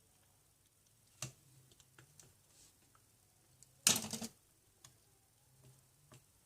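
Faint clicks and taps of small tools working inside an opened iPhone 7, with one brief louder clatter about four seconds in.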